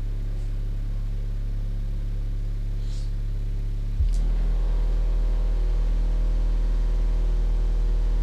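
Steady low bass test tones played through a 12-inch subwoofer driven by a 200-watt amplifier board. The tone steps up in level about four seconds in, and higher overtones join it.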